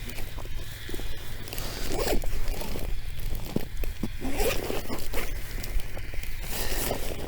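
Rummaging through a fishing tackle box: several short rasping, rustling bursts with scattered clicks as lures and gear are shifted about.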